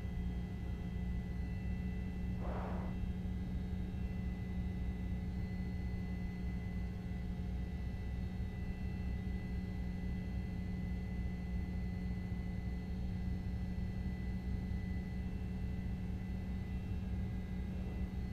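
Steady low rumbling hum with a few faint steady tones above it, and one brief short sound about two and a half seconds in.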